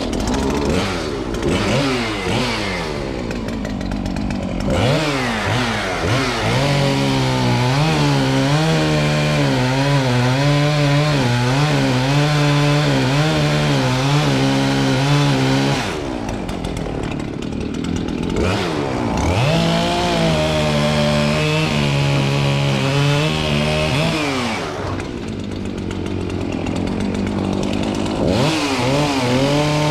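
Chainsaw revving, then cutting into a tree. Its engine note drops and wavers under load in the cut, eases off about halfway through, cuts again, eases off once more, and bites in again near the end.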